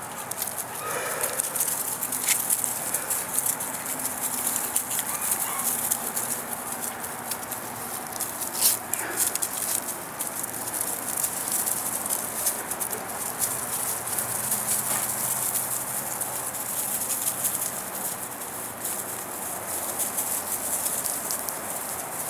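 Young German shepherd puppies play-fighting, with occasional short yips and squeaks, and a single sharp click partway through.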